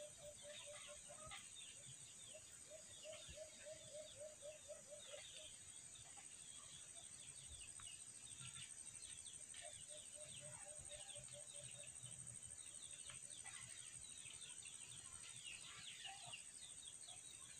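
Faint bird calls: a few short runs of rapid, low clucking notes, several a second, over scattered high chirps and a steady high hiss.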